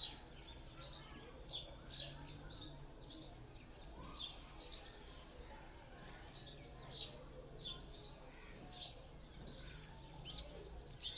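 Small birds chirping: short, high chirps repeated irregularly, about one or two a second.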